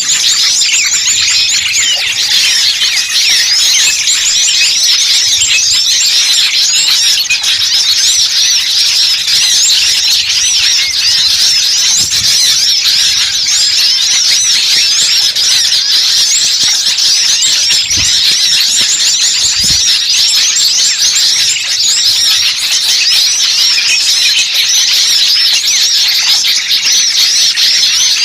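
Dense, noisy chorus of many small songbirds chirping and twittering all at once, high-pitched and unbroken: a bird-trapping lure recording ("burcil ribut") that mimics an agitated flock to draw wild birds in. A couple of faint low thumps come near the end.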